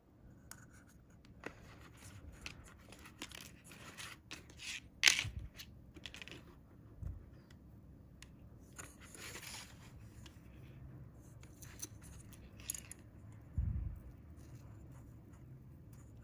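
Close handling noises of fingers working small foam beads onto a fishing hook over a small metal tin: scattered light clicks, rubs and rustles, with one sharp click about five seconds in and a dull thump about three-quarters of the way through.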